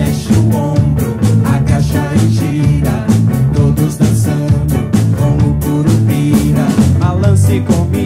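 Upbeat ska-rock band music with electric bass, a steady beat and a man singing.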